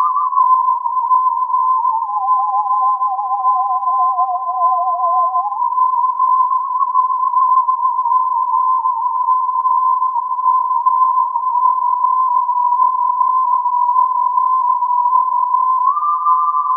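Roland SH-01 Gaia synthesizer playing programmed human-whistle patches as two pure whistling tones. One tone holds steady. The other wavers with vibrato, slides down below it for a few seconds, then rises back to meet it, and near the end steps up just above it.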